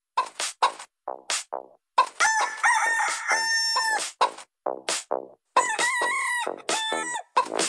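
Novelty music track built from sampled chicken clucks and rooster-like crows: short clucks in the first couple of seconds, then two longer held crowing calls that bend at their ends.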